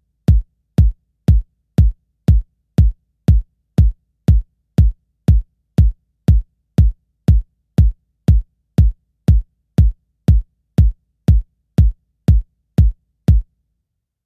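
Background music: a lone electronic kick drum beating evenly about twice a second, with nothing else playing over it. The beat stops shortly before the end.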